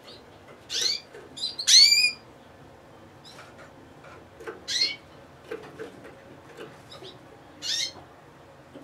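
Gloster canary calling in short chirps: a couple of chirps about a second in, the loudest cluster about two seconds in, then single chirps about five and eight seconds in.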